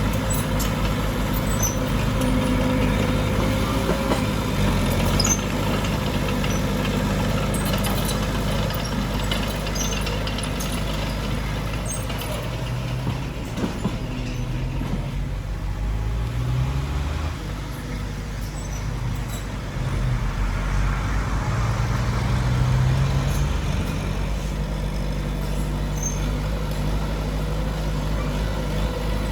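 Heavy diesel engines of a bulldozer and dump trucks running, the engine note rising and falling several times as the machines work under load.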